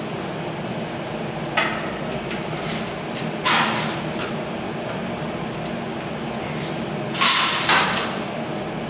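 About four short, harsh bursts of noise from work on a clamped steel tube, the later ones with a metallic clink, over a steady low workshop hum.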